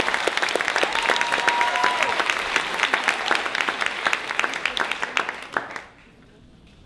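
Audience applauding in a theatre, dying away about six seconds in.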